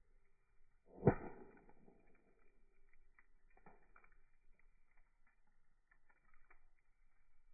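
Wood fire burning: a single sharp knock or pop about a second in that rings off briefly, then faint scattered crackles.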